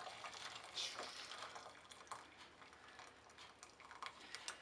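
Cooking water from boiled pumpkin pieces trickling faintly out of a tilted saucepan into a plastic strainer, with scattered small clicks and taps.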